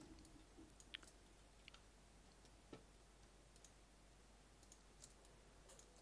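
Near silence with a few faint, scattered computer mouse clicks, the sharpest about a second in.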